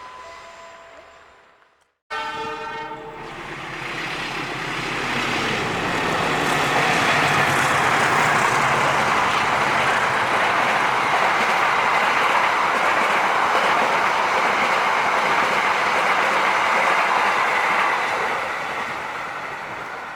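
A train horn blasts once, briefly, about two seconds in. A train then passes at speed, its wheel-on-rail noise building, holding loud for about twelve seconds and fading near the end.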